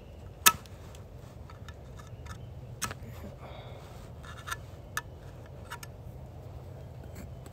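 Scattered sharp metal clicks and ticks as a small hand tool picks packed wood chips out of the clutch and sprocket area of an Echo CS-7310 chainsaw, whose chain had jammed on them. The loudest click comes about half a second in, with a few more spread through the rest.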